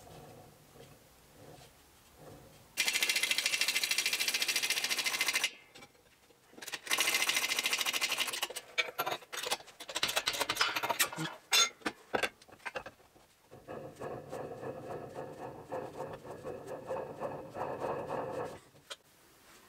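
A hand-held power tool runs in two loud bursts of two to three seconds each. Sharp metallic clicks and clanks follow as the hydraulic shop press handle is pumped, then a steadier buzzing rattle for about five seconds near the end.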